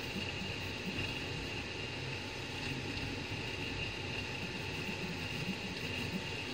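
3D printer at work on a print: a steady fan whine with short low motor tones coming and going as the print head moves.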